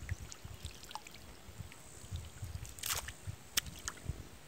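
Small squelches and splashes in shallow water with scattered light clicks, and a brief louder rush about three seconds in followed by a sharp click.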